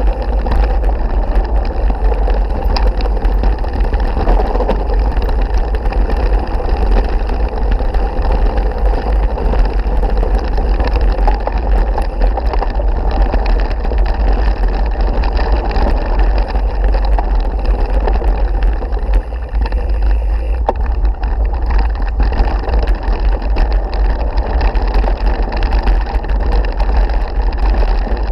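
Mountain bike riding fast over a loose gravel road: steady wind rumble on a bike-mounted camera's microphone over the crunch and rattle of tyres on stones, with many small clicks and knocks.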